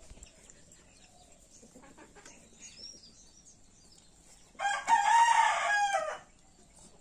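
Rooster crowing once: a single loud call of about a second and a half, starting a little past the middle.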